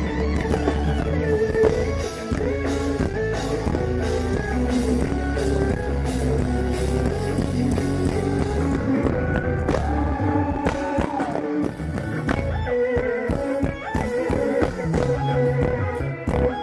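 A live band playing: electric guitar, bass and drums, with some singing, amplified through a PA system in a large hall. The bass drops out briefly about twelve seconds in.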